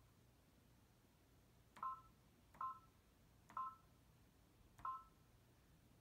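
Baby Lock Destiny II sewing and embroidery machine's touchscreen giving a short two-tone key beep each time a letter is tapped with a stylus; four beeps, irregularly spaced about a second apart, starting about two seconds in.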